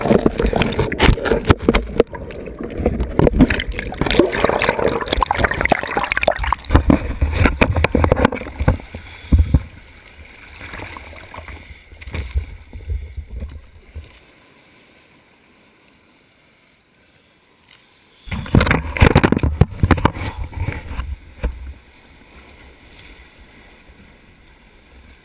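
Shore surf churning and washing over a GoPro in its sealed dive housing at the waterline: muffled rushing water with many knocks and bubbling. It eases off about ten seconds in and drops low for a few seconds, then another wave surges over the housing for about three seconds before settling to a lower, steady wash.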